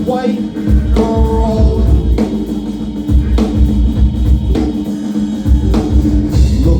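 Live band music: a drum kit and deep bass in a repeating groove, with snatches of voice over it.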